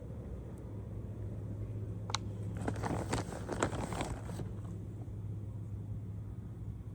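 A couple of seconds of rustling and crackling handling noise in the middle, over a steady low hum.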